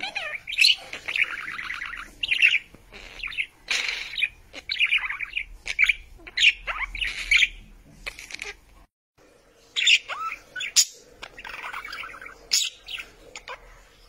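Budgerigars chattering: a busy run of quick chirps and buzzy warbles, broken by a brief pause about nine seconds in.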